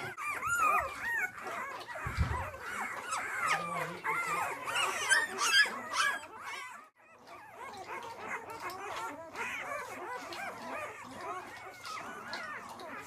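A litter of week-old Labrador puppies whining and squealing together in many overlapping high cries that rise and fall, the newborns complaining at being left by their mother. The cries stop for a moment about seven seconds in, then go on more faintly.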